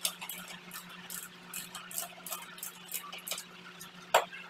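Irregular metallic clicks of a wrench working the top mounting nut of a Bajaj Discover motorcycle's rear shock absorber during removal, a few clicks a second with one louder knock near the end.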